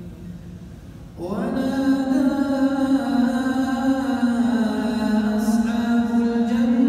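A man's voice chanting Quranic recitation in prayer. After a short pause it enters about a second in with a brief upward glide, then holds one long, drawn-out melodic note with small shifts in pitch.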